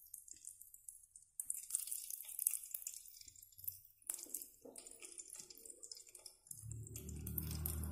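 Curry leaves and mustard seeds sizzling and spluttering in hot oil in an aluminium pot, with irregular crackles and pops. A low hum comes in near the end.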